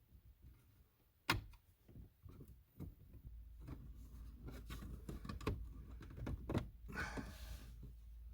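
Scattered clicks and knocks of a hand tool working at the plastic dash trim and fasteners of a car, with one sharp click about a second in and a brief scraping rustle near the end.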